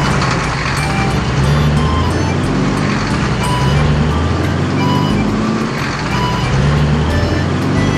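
Truck engine sound effect running steadily, with background music playing over it.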